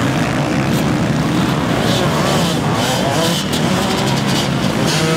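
A pack of motocross bikes accelerating hard off the start, many engines revving at once with pitches rising and falling over one another.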